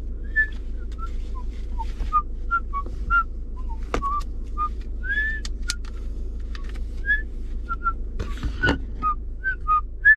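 A man whistling a tune in short, gliding notes. Sharp plastic clicks sound about four seconds in and again near the end as a chest-camera harness is strapped on and buckled, over a steady low hum.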